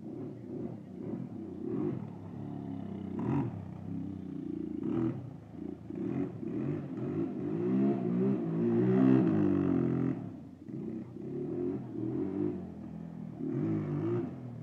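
Kawasaki four-wheeler's engine revving up and down at full throttle as it is ridden hard through burnouts and figure eights. It is loudest and highest-revving around the middle.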